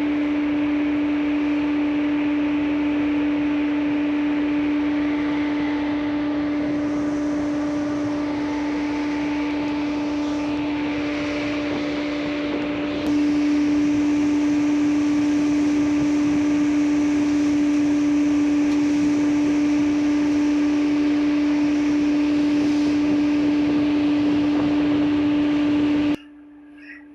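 A ship's engine droning steadily: a strong, constant low hum over a wash of machinery noise. It gets a little louder about halfway and cuts off suddenly near the end.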